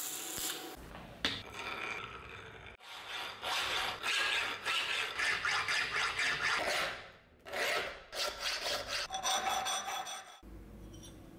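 Hand files rasping on the rusty steel of an old axe head in quick, repeated back-and-forth strokes. A round file works inside the eye, then a flat file works across the head, with a short break about two-thirds of the way through.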